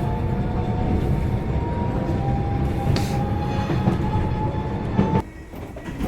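Train running on rails: a steady rumble with a thin high whine held over it, cutting off abruptly about five seconds in.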